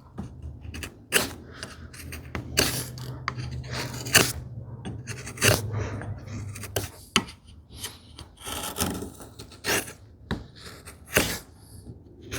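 Hand tools shaving and scraping a small wooden filler piece: irregular short scraping strokes, roughly one a second, as the curved end-grain shape is cleaned up.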